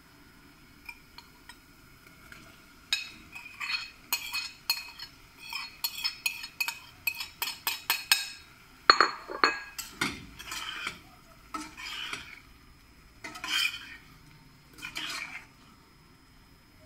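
A spoon scraping and clinking on a ceramic plate as fried potato strips are pushed off it into a stainless steel saucepan, a quick run of clicks and scrapes starting about three seconds in. Then a few slower, separate scraping strokes, about one every second and a half, as the potatoes are stirred into thick tomato gravy in the pot.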